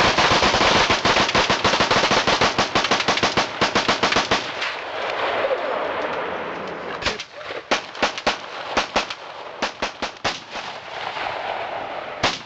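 Gunfire: a rapid string of shots in quick succession for about four and a half seconds, then after a short lull a series of irregularly spaced single shots.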